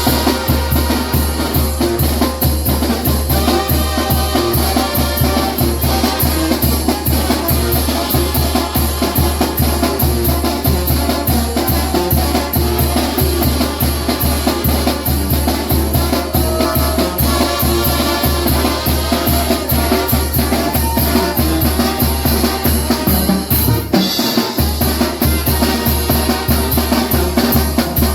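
Upbeat dance music: a trumpet playing over a backing track with a fast, steady drum-kit beat and heavy bass. The bass drops out briefly about 24 seconds in.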